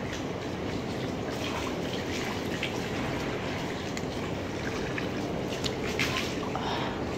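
Water running steadily and splashing as a person washes for wudu, the ritual ablution before prayer.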